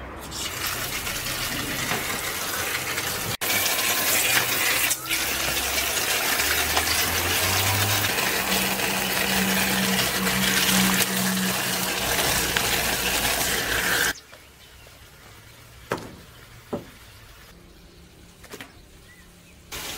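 Water running or pouring steadily, then cutting off suddenly about fourteen seconds in; a few short knocks follow.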